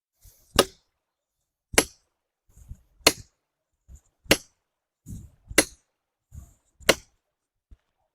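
A hammer striking a felling wedge in the cut of a tree: six sharp metallic blows about one every second and a quarter, each with a softer knock just before it.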